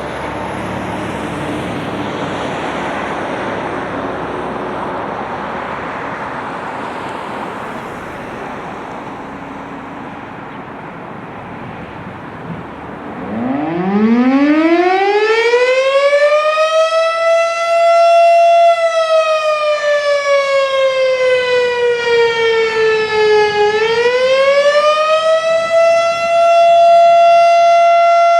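Federal Signal STH-10 fire siren winding up for its attack signal, after about thirteen seconds of steady rushing background noise. It climbs in a rising wail to a single clear tone, slides slowly down, then rises again and holds, and begins to fall once more near the end.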